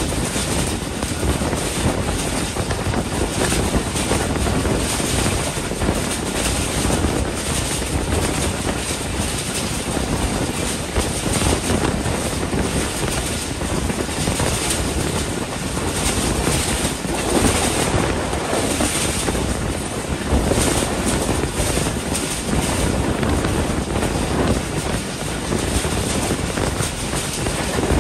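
Passenger train running at speed, heard from an open coach doorway: a steady rush of wind on the microphone mixed with the rumble of wheels on the rails.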